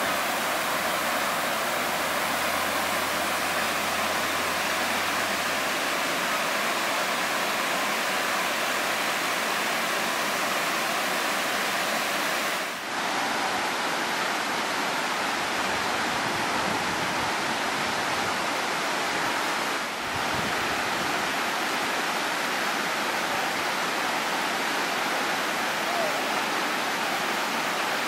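Steady rush of water cascading down a rocky waterfall, an even, continuous sound that dips briefly twice.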